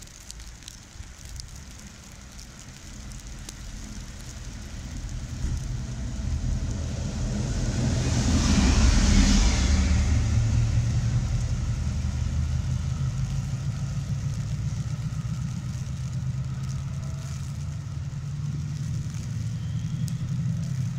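Chiltern Railways Class 68 diesel-electric locomotive 68013 approaching and passing through the station at speed. It is loudest with a rush of wheel and air noise about eight to ten seconds in, and a steady low engine drone carries on after it has passed.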